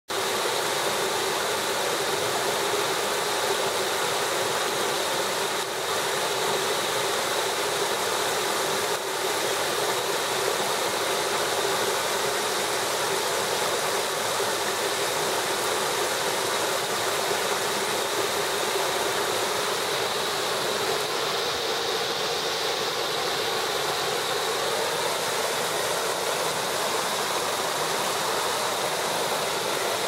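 Small forest waterfall pouring over rock ledges into a pool: a steady, unbroken rush and splash of falling water.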